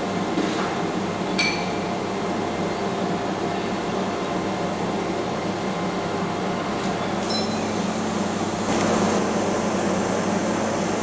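Steady mechanical drone with a low hum from a passing container ship's machinery, growing a little louder near the end. Two short, light metallic pings sound about a second and a half in and again about seven seconds in.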